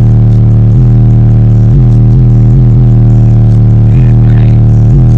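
Bass-heavy music playing very loud through a car audio system's four subwoofers, heard inside the vehicle's cabin: a deep, sustained bass note with beats landing about once a second.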